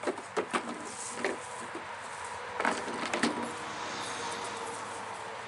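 Canada lynx landing on and stepping along a wooden bench: a few sharp knocks and taps as it jumps up, then another cluster of taps about two and a half seconds in as it moves along the seat toward the gourds.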